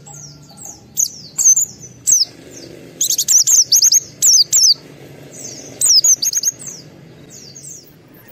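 Pleci (white-eye) singing: bursts of sharp, high chirps that sweep downward, with a fast run of repeated notes in the middle. It is the excited, high-'emosi' song kept to provoke other white-eyes into singing.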